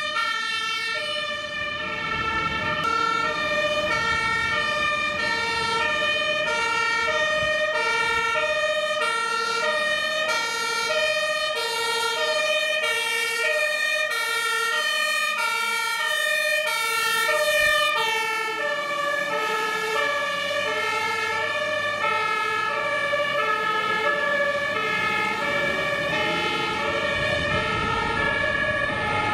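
German two-tone fire-service horn (Martinshorn) on fire engines driving under emergency signals, alternating steadily between a high and a low note about once a second, with truck engine rumble underneath.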